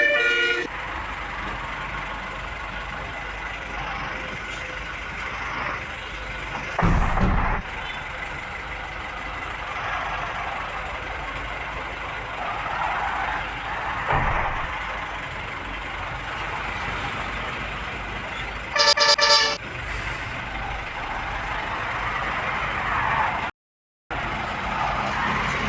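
Road traffic with buses passing. A tour bus's multi-tone telolet horn tune cuts off in the first second, and a short multi-tone horn blast sounds about 19 seconds in. A heavy vehicle passes close with a low rumble about 7 seconds in.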